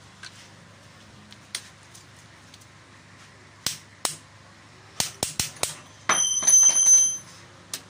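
Sharp metallic clicks of a click-type torque wrench and socket working the main bearing cap bolts: a few separate clicks, then four quick ones, then a loud, rapid ratcheting clatter with a ringing metal tone for about a second near the end.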